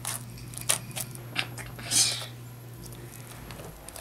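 Pink glitter slime being kneaded and squeezed by hand in a glass bowl, giving about half a dozen short wet pops and squelches, the loudest about two seconds in.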